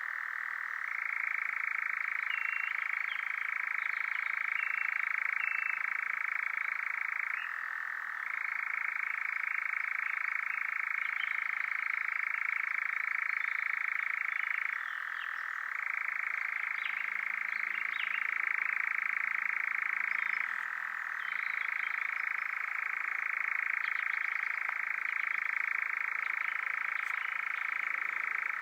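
European nightjar churring: a continuous, machine-like trill that drops briefly to a lower pitch every six or seven seconds.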